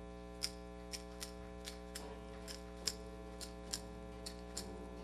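Steady electrical hum from the stage sound system, with soft, light ticks about twice a second.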